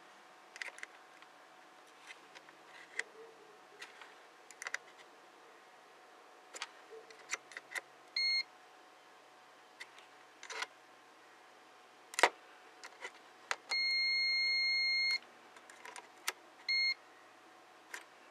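Digital multimeter's test beeper sounding as the probe tips are held on the replaced diodes of a TV power supply board. There are three high beeps: a short one, then a longer one of about a second and a half, then another short one. Light clicks and taps of the probe tips on the board come between them.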